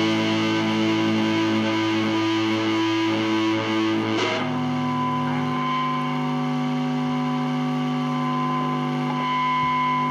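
Distorted electric guitar holding sustained chords over a steady drone, moving to a new held chord about four seconds in, without vocals.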